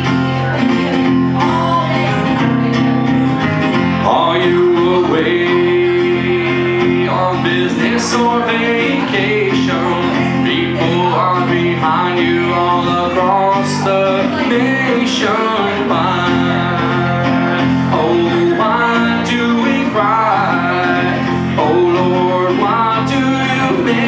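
Acoustic guitar strummed and picked in a steady pattern while a man sings a melody into a microphone, a live solo singer-songwriter performance.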